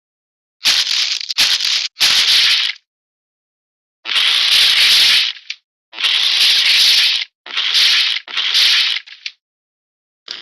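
A series of cartoon sound effects: six short bursts of rattling, scraping noise, each half a second to a second and a half long, cut cleanly with dead silence between them.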